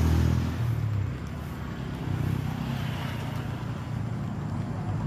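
Motor vehicle engine and road noise, a steady low hum that is loudest at first and eases off about a second in.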